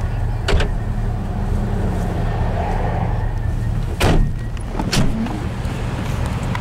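Car engine idling with a steady low hum, broken by three sharp knocks: one about half a second in, a louder one at about four seconds and another a second later.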